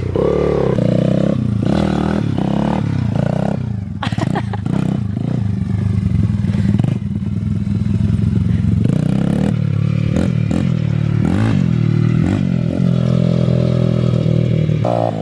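Dirt bike engine running while the bike is ridden, the engine pitch repeatedly climbing and dropping as it revs up and eases off, with a few clattering knocks.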